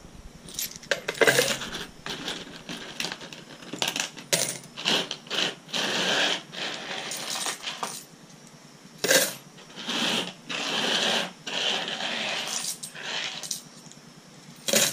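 Handfuls of corroded coins clinking and clattering as they are dropped into a rock tumbler's drum. Sharp clinks come one after another, with a couple of longer rattles as coins pour in together.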